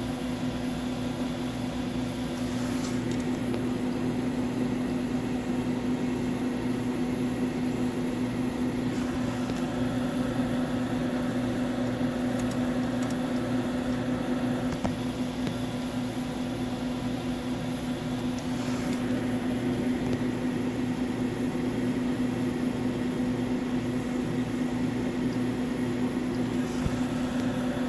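Steady hum of powered-up electronics bench equipment: cooling-fan noise with a constant low electrical tone.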